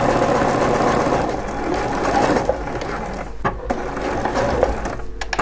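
Juki F600 sewing machine stitching a seam at a steady run, easing off and stopping about three seconds in, followed by a few sharp clicks.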